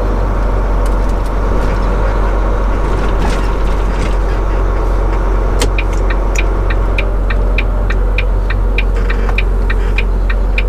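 Semi truck's diesel engine running, heard from inside the cab, with a few rattles in the first four seconds. From about halfway in, the turn signal ticks steadily about three times a second.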